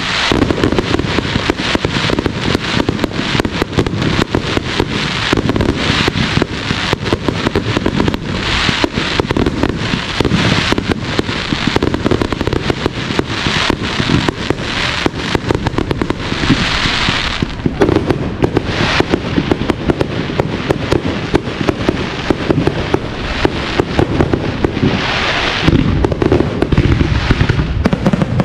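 Professional aerial fireworks display: a dense, continuous barrage of shell bursts and sharp bangs, with longer spells of hissing crackle just past halfway and again near the end.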